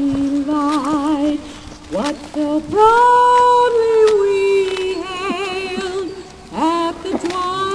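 A woman singing unaccompanied in long held notes with vibrato, sliding up into several of them; the loudest and highest note comes about three seconds in.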